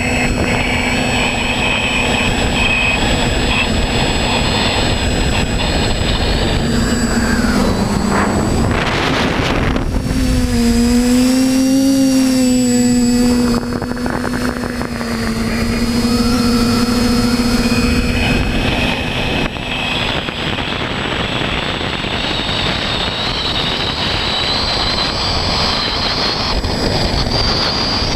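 Small camera drone's electric motors and propellers heard from on board: a steady buzzing whine over wind rush, its pitch dipping and swelling as it manoeuvres about eight to thirteen seconds in.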